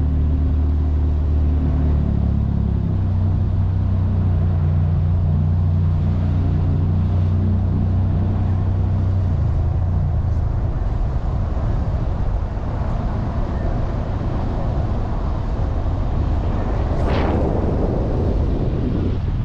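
Steady low motor hum, vehicle-like, which weakens about halfway through, with one short rush that swells and fades near the end.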